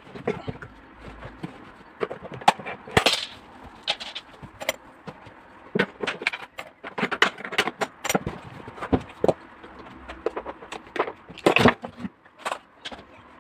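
Irregular knocks, clicks and clinks of tools and metal parts as a Samsung washing machine is taken apart to replace its bearings, with a few louder strikes among them.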